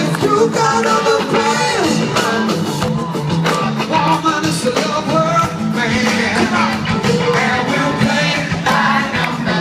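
Live band music with a lead vocal and drums, played loud over a stage PA and heard from within the audience.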